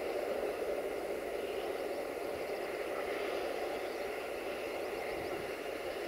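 Freight train wagons rolling away along the track: a steady noise of wheels running on the rails that slowly fades.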